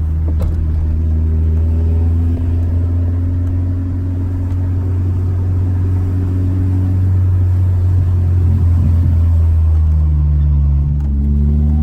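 A car engine running steadily with a deep hum, its pitch drifting only slightly, as from a car driving at an even speed.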